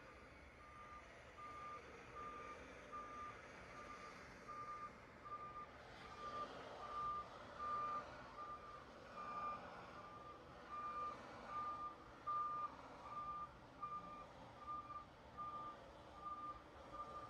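A vehicle reversing alarm beeping steadily at one pitch, about three beeps every two seconds, over the low running noise of vehicles that grows louder in the second half.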